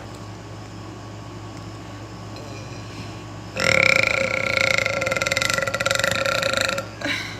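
A woman's long, loud burp, about three seconds, starting about halfway in, its pitch easing slightly downward, with a brief short sound right after it. The burping is put down to acid reflux.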